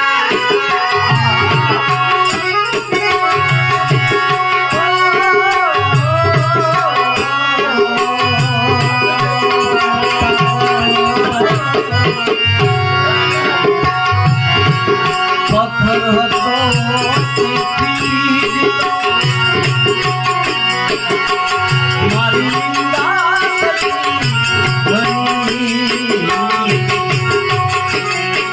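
Indian devotional folk music: hand drums beating a steady rhythm under a melody that bends and wavers in pitch, with rattling hand percussion.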